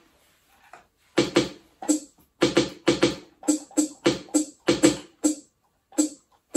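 Electronic drum sounds from a roll-up drum pad kit being played: a loose, uneven run of short drum hits, about two to three a second, starting about a second in.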